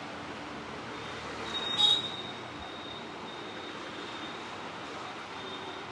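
Steady roadside traffic noise, with one brief sharp sound about two seconds in and a thin, faint high tone from about a second in.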